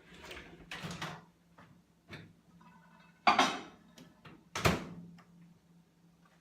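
Kitchen clatter of a covered bowl being handled and loaded into a microwave oven: light knocks and scrapes, then two loud knocks past the middle, the last a heavy clunk of the microwave door being shut. A faint steady hum lies underneath.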